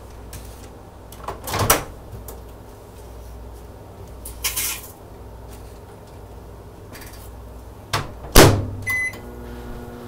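Microwave oven being loaded and started: a couple of knocks and clatters, then the door shut with a loud clunk about eight seconds in, a short keypad beep, and the microwave starting to hum.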